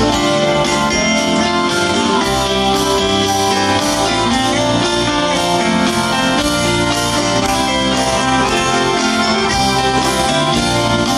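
Live rock band playing an instrumental passage, with electric guitar out front over bass, keyboards and drums, recorded from the audience at a large concert.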